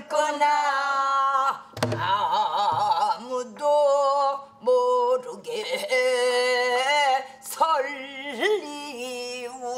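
A woman singing pansori in long held notes with wide, wavering vibrato. She accompanies herself on a buk barrel drum, with a couple of low drum strokes about two seconds in.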